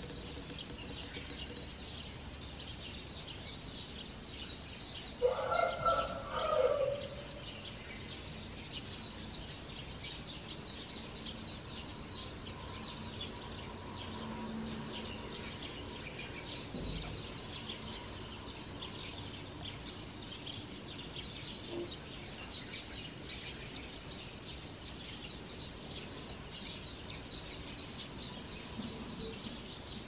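Dawn chorus of many small songbirds, a dense, continuous high-pitched twittering and chirping. About five seconds in, a rooster crows once, the loudest sound.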